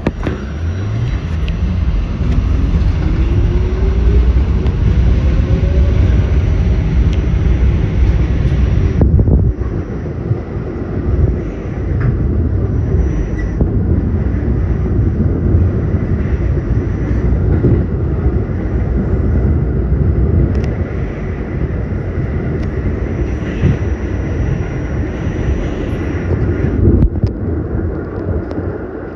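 R160A/B subway train with Alstom propulsion running with a continuous rumble of wheels on rail. In the first several seconds its traction-motor whine rises steadily in pitch as the train accelerates.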